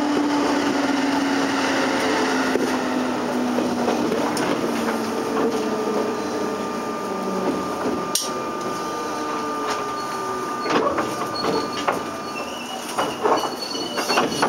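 Interior running sound of a JR 203 series electric train with thyristor chopper control, slowing down: the motor and chopper tones fall in pitch as it brakes. There is a sharp click about eight seconds in, and near the end the train creeps almost to a stop with clicks and faint brake squeaks.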